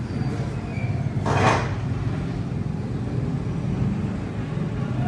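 Low, steady rumble of street traffic and engines, with a brief loud rushing noise about a second and a half in.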